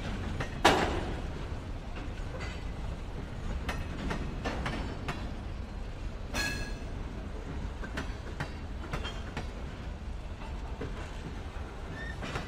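Freight train of autoracks and covered hoppers rolling past: a steady low rumble with repeated wheel clicks and clanks, a loud bang under a second in, and a brief high wheel screech around the middle.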